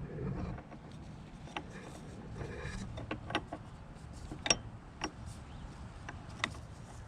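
Scattered sharp clicks and knocks of metal parts and hand tools being handled while a hydraulic steering cylinder's seal cap is tightened and its mounting bracket refitted, the loudest knock about four and a half seconds in, over a low steady hum.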